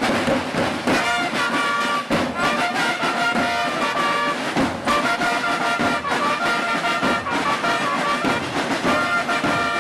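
Music led by brass instruments, with horns holding notes over a steady beat.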